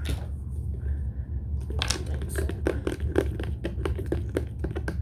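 Quick run of crinkling, crackling handling noises, like plastic being crumpled or worked by hand, starting a little under two seconds in, over a steady low hum.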